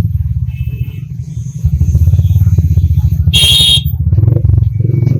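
Vehicle ride in traffic: heavy wind buffeting on the microphone over a running engine, with a short shrill high-pitched sound about three and a half seconds in.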